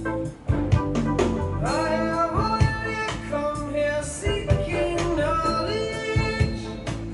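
A song with a singing voice over a steady beat, played back at high volume through a vintage Sansui BA-2000 power amplifier fed by a Nakamichi 1000P DAC. The sound is distorted because the camera's microphone is overloaded by the volume.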